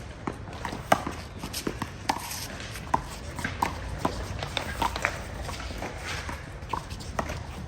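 A one-wall handball rally: the small rubber ball slapped by hands and smacking off the wall and ground in a quick, irregular string of sharp hits, among scuffing footsteps.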